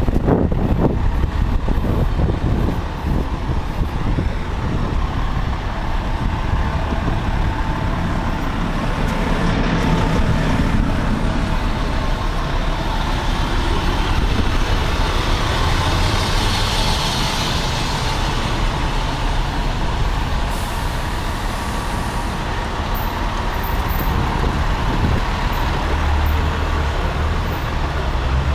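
Heavy fire apparatus diesel engine running close by on a city street, with a steady low rumble. A broad hiss of air brakes comes about halfway through.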